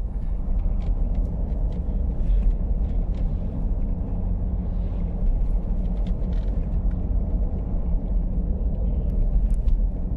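Steady low rumble of a car on the road, heard from inside the vehicle.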